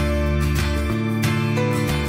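Background music: a soft instrumental track with plucked acoustic guitar.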